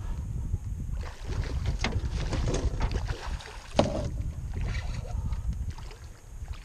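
Wind buffeting the microphone, over scattered splashes and knocks as a hooked redfish thrashes at the surface beside a canoe, with one sharper knock about four seconds in.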